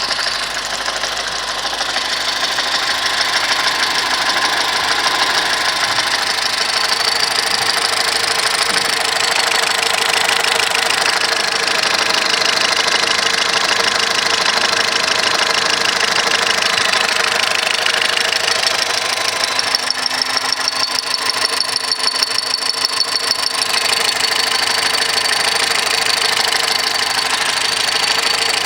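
2010 Volkswagen Golf 1.6 engine idling with a persistent noise from the poly-V accessory belt drive. A high, steady tone joins in about twenty seconds in. The noise stops when the poly-V belt is removed, so it comes from the belt drive, even though the water pump, alternator bearings, tensioner and belts are new.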